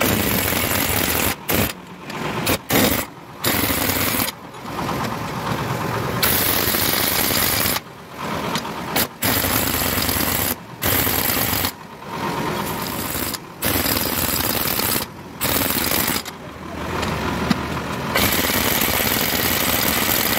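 Pneumatic impact wrench hammering in repeated runs of half a second to a few seconds, stopping briefly between them, as it drives the bolts on a truck differential case.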